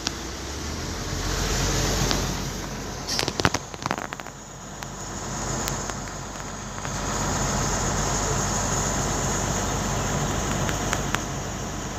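Truck engine idling with a steady low rumble, with a cluster of sharp knocks and rattles about three to four seconds in.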